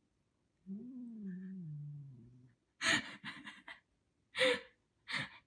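A domestic cat gives one low, drawn-out grumbling meow of about two seconds that sinks in pitch: an annoyed protest at being told to get off the laptop. A person then laughs in several short, breathy bursts.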